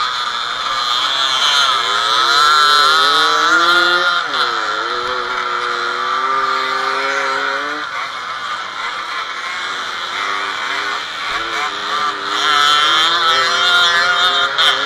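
Small two-stroke moped engines running hard off-road, heard close from on board one of the bikes: the nearest engine revs up and down, its pitch dropping about four seconds in and climbing again, with other bikes' engines running around it. It eases off around the middle and revs louder again near the end.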